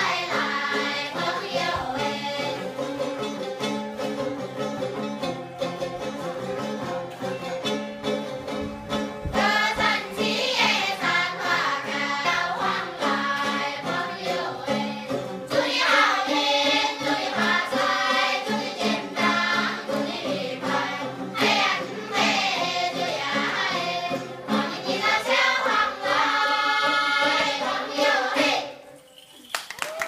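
A group of women and men singing a traditional folk song together, several voices over a steady held low note. The singing breaks off near the end.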